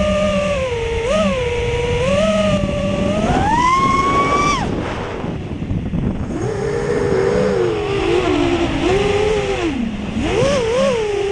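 Brushless motors and propellers of an FPV quadcopter whining, the pitch climbing steeply on a throttle punch about four seconds in, then dropping low and wavering before rising again near the end. A steady rushing noise of wind runs under it.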